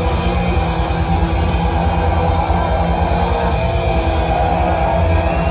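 Heavy metal band playing live and loud: guitars over a dense, heavy low end with a fast, steady drum pulse.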